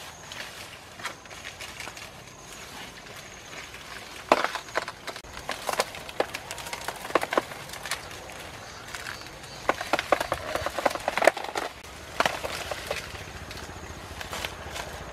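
Machete chopping and hacking at a banana plant's leaves and stalk, with leaves rustling and crackling: quick clusters of sharp cuts about four seconds in, again in the middle, and a longer run around ten to twelve seconds.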